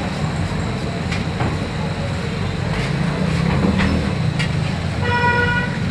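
Steady street-traffic rumble with a few sharp metallic clicks. About five seconds in, a vehicle horn sounds once: a single steady honk lasting under a second.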